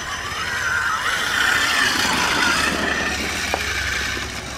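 Electric motor whine of a radio-controlled monster truck driving over grass, the pitch rising and falling with the throttle, loudest in the middle.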